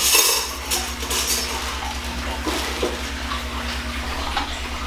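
A plastic bread bag crinkles in a few short bursts as slices are pulled out. Then come light taps and clinks as the slices are set down on a metal mesh air-fryer tray.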